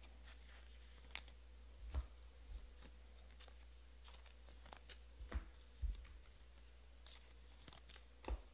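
Faint, scattered clicks and crinkles of trading cards and their foil pack wrappers being handled, with a few soft low thumps.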